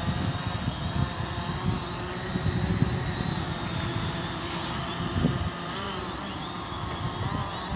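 Small quadcopter drone's motors and propellers giving a steady high-pitched whine, with wind buffeting the microphone underneath.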